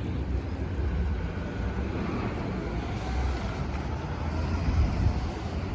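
Steady low vehicle rumble with an even noisy haze above it.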